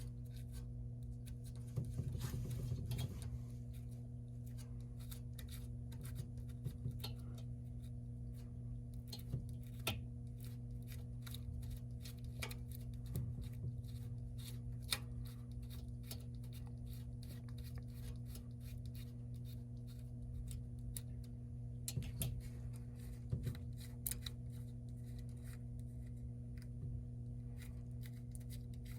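Steady low electrical hum of a refrigerated drinks vending machine, with scattered light clicks and taps from handling. There is a denser flurry of clicks about two seconds in.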